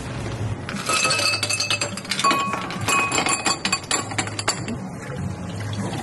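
Ice cubes dropped into drinking glasses: a quick, dense run of clinks with a glassy ring, lasting a few seconds and thinning out near the end.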